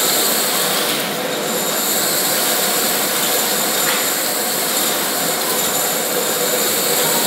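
Industrial vacuum cleaner running steadily, its hose drawing cremated remains out of a cremation oven chamber: a rush of air with a high whine over it.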